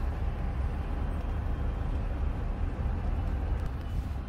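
Steady low rumble of a car running, heard from inside its cabin.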